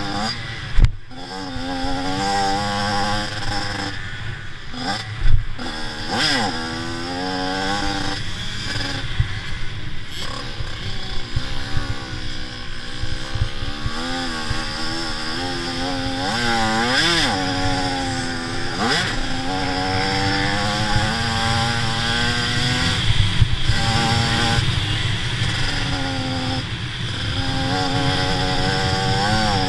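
85cc two-stroke motocross bike engine racing, revving up and down over and over as it works through the gears. There is a sharp thump about a second in and another about five seconds in.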